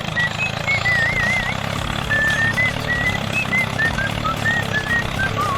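Steady low engine hum, with a light tune of short high notes and a couple of trills playing over it.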